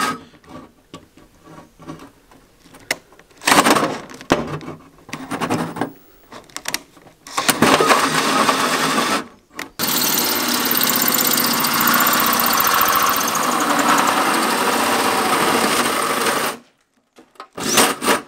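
Cordless drill driving a hole saw through the van's sheet-steel body panel to cut the opening for a snorkel air intake. It runs in short bursts at first, then cuts steadily for a few seconds, pauses briefly, and runs steadily again for about six seconds before stopping, with a couple of short bursts near the end.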